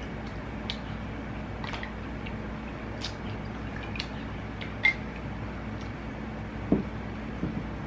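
Close-miked eating sounds: scattered wet mouth clicks and smacks of chewing, over a steady low hum.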